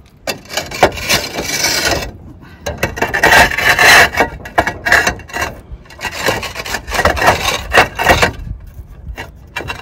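Cement roof tiles being slid back into place by hand, scraping and grating against the neighbouring tiles and battens, with knocks as they are seated.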